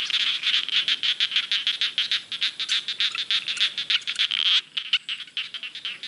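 Chorus of many frogs calling in a flooded rice paddy: a dense, rapid run of high-pitched croaks, dipping briefly about four and a half seconds in.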